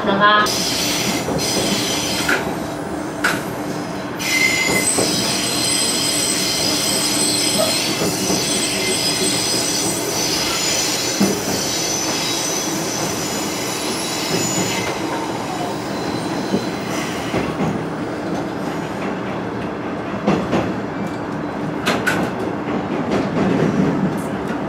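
KiHa 110 diesel railcar running, heard from inside the car at the front. High-pitched wheel squeal starts about four seconds in and fades out around the middle, with a few sharp clicks from the wheels over the rails.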